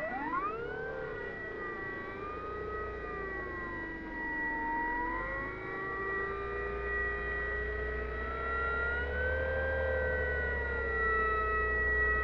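Electric motor and propeller of a small RC aerobatic plane whining, the pitch rising and falling smoothly as the throttle changes and the plane passes, with a steady high-pitched whine underneath.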